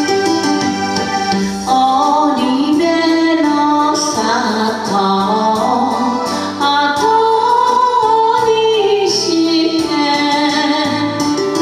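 A woman singing a slow, melodic Japanese song over an instrumental karaoke backing track with keyboard.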